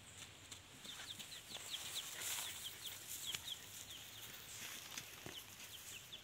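Chicks peeping in a quick, irregular run of short, high, falling chirps, with a few light scuffs and rustles of paws on dry straw and dirt.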